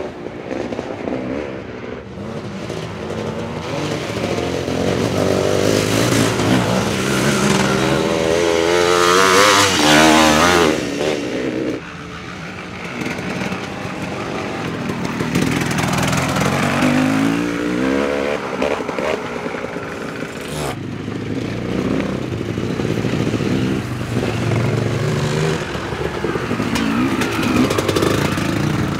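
Vintage enduro dirt bike engines revving and rising and falling in pitch as bikes ride past one after another. The loudest pass, about ten seconds in, comes with a rush of hiss as a bike splashes through water.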